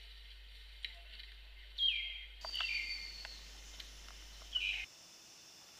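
A bird calling in rainforest: three short whistled calls, each sliding down in pitch, about two seconds in, just after, and once more near the end.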